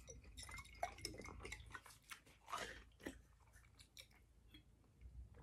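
Faint close-up chewing and mouth sounds from eating sushi, with small clicks and taps, busiest in the first three seconds. In the second half a glass water bottle is raised and sipped from.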